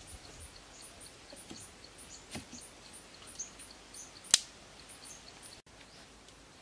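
High, short chirps repeating about three times a second, with a few faint knocks from thin cane strips being handled and one sharp crack a little past four seconds in.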